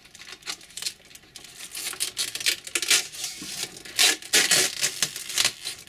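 Thin clear plastic protective film being peeled and pulled off an RC crawler's body, crinkling and rustling in quick crackly bursts that grow louder in the second half.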